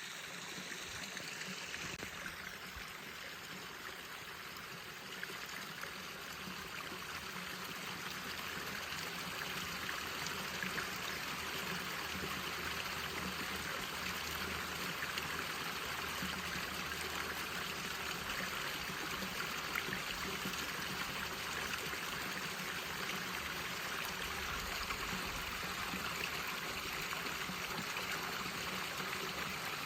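Falling water in a small side stream, splashing and rushing steadily, a little louder from about ten seconds in.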